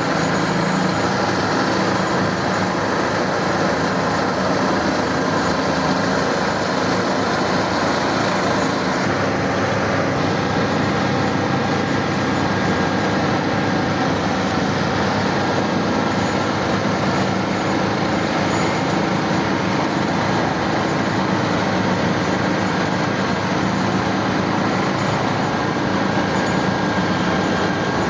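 Road roller's diesel engine running steadily at work.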